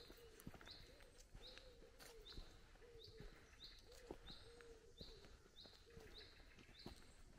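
Faint woodland birdsong: one bird repeating a short high note about twice a second, over a lower, repeated cooing call. Faint footfalls on the dirt path tick in now and then.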